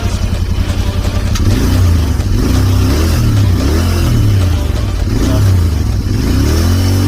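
Royal Enfield Continental GT 650's parallel-twin engine through its exhaust, idling with an even pulse, then revved up and let fall back several times from about a second and a half in.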